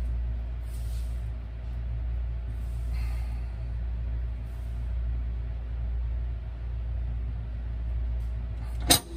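A steady low hum, with a few faint soft rustles. Near the end comes a single sharp metallic click as the disposal's metal mounting ring is handled.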